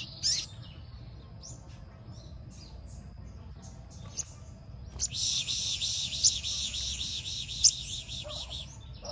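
Caged sunbird giving short, high chirps, then about five seconds in breaking into a fast, high, continuous song that runs for roughly three and a half seconds.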